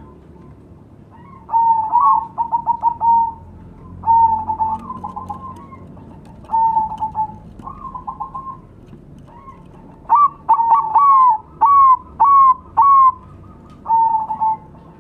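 Zebra doves (perkutut) cooing: about five song phrases of quick repeated coos, each a few seconds long with short pauses between, and a run of short rising-and-falling notes about ten seconds in.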